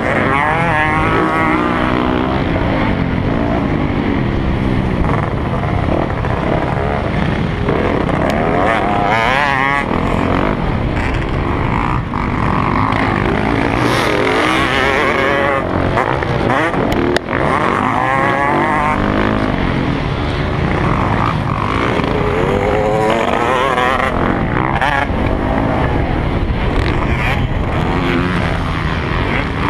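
Motocross dirt bike engine revving hard, its pitch climbing and falling over and over as the rider works the throttle and shifts through the gears around the track.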